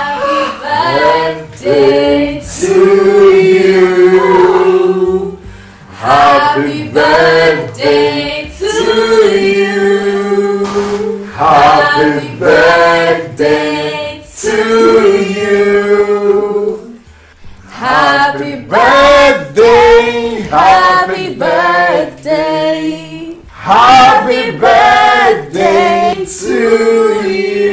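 A small group of voices singing together in phrases, with long held notes and short pauses between phrases.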